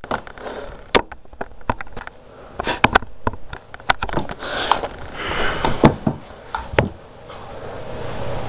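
Handling noise: scattered sharp clicks and knocks with bursts of rustling, as the camera is moved and settled, and a hiss that builds near the end.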